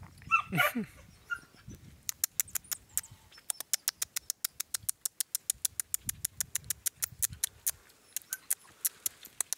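Marmosets calling: a short falling call just after the start, then from about two seconds in a long run of short, sharp, high-pitched calls, about four a second. The calling is the agitated sound of alarmed marmosets.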